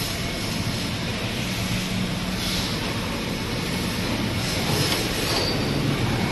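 Plastic injection molding machine running: a steady mechanical drone with a low hum underneath.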